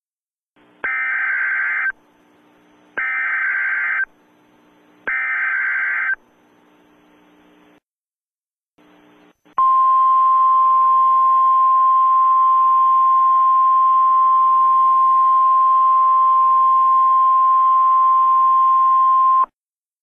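Emergency Alert System header: three one-second screeching digital data bursts about two seconds apart, followed by a single steady attention tone held for about ten seconds that cuts off sharply. Together they mark the start of a Civil Danger Warning alert.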